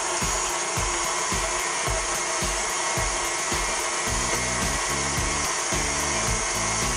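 KitchenAid Artisan stand mixer running steadily, its beater creaming butter and sugar in the steel bowl with an even motor whir. Background music with a low beat plays underneath.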